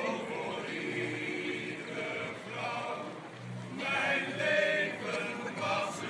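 A group of voices singing together in unison, in long held notes that rise and fall.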